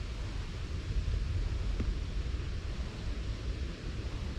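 Wind buffeting the microphone as an uneven low rumble over a steady hiss, with one faint click about two seconds in.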